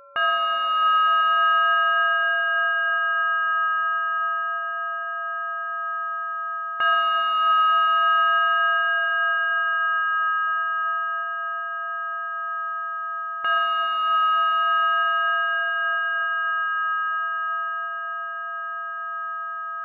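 Synthesized audio model of the Novodevichy Convent's small zvon bell Zazvonny-3 (25 funt, about 10 kg, cast in the 17th–18th century), struck three times about every six and a half seconds. Each strike rings on with several clear, steady partials that slowly fade.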